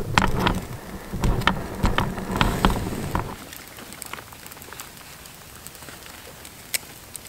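Paper and kindling crackling and rustling as a campfire is lit: a dense run of crackles for about three seconds, then only scattered crackles.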